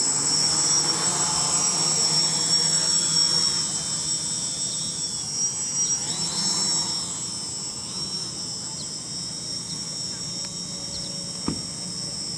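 OFM-450 quadcopter's brushless motors and propellers whining as it lifts off the ground and flies off, the buzz steady and high, loudest over the first few seconds and growing fainter as the quad moves away. A single short click sounds near the end.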